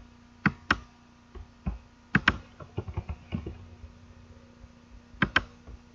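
Clicks of a computer mouse and keyboard while working at a desk: three louder pairs of sharp clicks about half a second, two seconds and five seconds in, with lighter taps between, over a faint steady hum.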